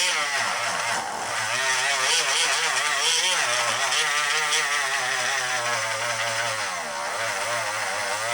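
Dremel rotary tool grinding down dowel plugs in a wooden gun stock, its whine wavering up and down in pitch as the bit bears on the wood.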